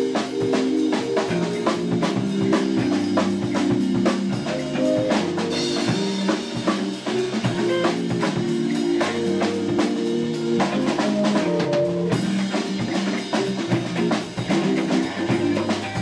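A band playing: a drum kit keeps a steady beat with hand percussion, and held chords come in right at the start over the drums.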